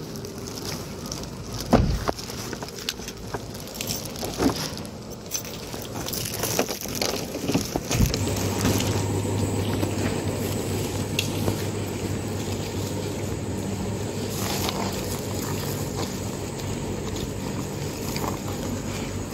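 Plastic shopping bags rustling and crinkling with scattered knocks and two heavy thuds as things are handled at an open car, the second thud about eight seconds in. After it a steady low hum sets in and carries on.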